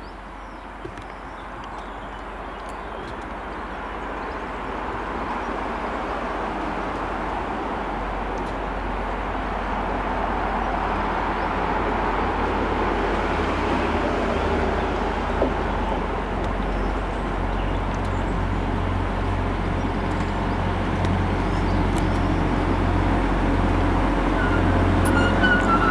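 Class 175 diesel multiple unit running into the station, its low engine drone growing steadily louder as it approaches and draws alongside. A brief high squeal comes near the end.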